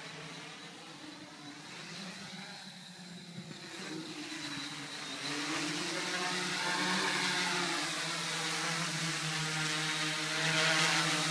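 Quadcopter's electric motors and propellers whining in flight as it comes down from overhead to hover close by. The buzz grows louder about five seconds in and again near the end, and its pitch wavers as the motors change speed.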